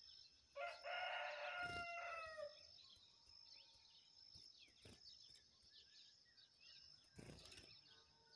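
A rooster crows once, starting about half a second in and lasting about two seconds, its pitch sagging at the end. Beneath it runs a steady high insect drone with scattered faint bird chirps, and there is a soft bump near the end.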